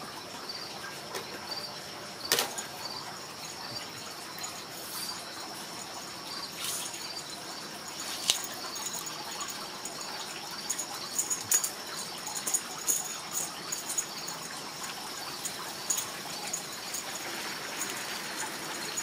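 Outdoor ambience: a steady hiss with a thin high tone and a short high chirp repeating about twice a second. Scattered sharp clicks and taps come through, a loud one about two seconds in and a quick run of small ticks in the second half.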